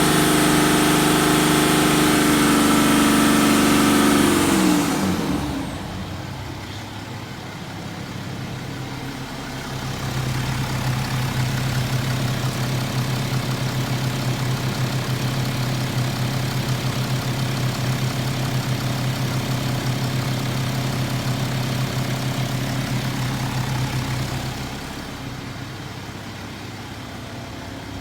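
BMW N57D30 3.0-litre inline-six diesel engine held at high revs, then dropping back towards idle about five seconds in. About ten seconds in the engine note rises and holds steady for around fifteen seconds, then falls back near the end. The owner hears a misfire-like tapping when the revs are held up, despite new timing chains, injectors and crankshaft pulley, and with or without the accessory belt fitted.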